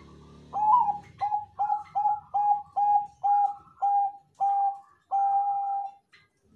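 Perkutut Bangkok zebra dove singing: a run of about ten quick, evenly spaced coos, the last one drawn out longer.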